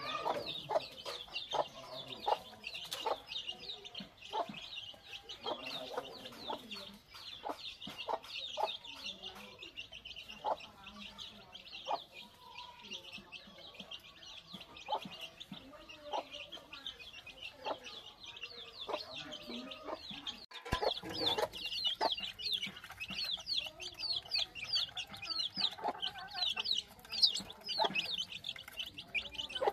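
A flock of chicks peeping continuously, many quick, high, falling cheeps overlapping, with hens clucking lower underneath and occasional clicks.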